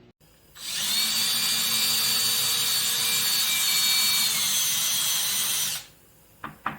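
Power drill driving screws into a wooden board to fasten caster wheels, running steadily with a high whine for about five seconds, then stopping; two short taps follow near the end.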